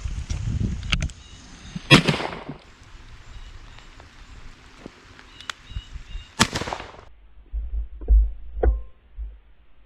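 Two shotgun shots about four and a half seconds apart, each ringing out briefly, followed by a few low thumps.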